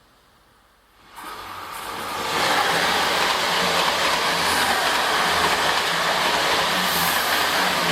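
A train running on the rails. It comes in after about a second of quiet, rises over about a second, then holds steady and loud.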